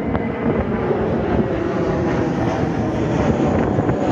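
Jet airliner's engines at takeoff power as it climbs out overhead, a steady dense rumble, with gusty wind buffeting the microphone.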